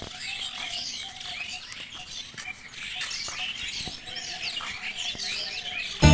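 Many small birds chirping and twittering at once, their calls overlapping steadily. Loud music cuts in suddenly at the very end.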